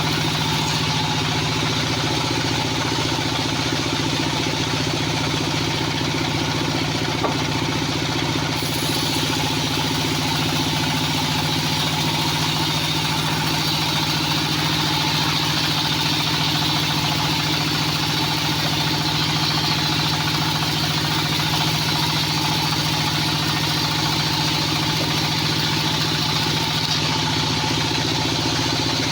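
Band sawmill running steadily, a constant engine drone with a steady hiss over it.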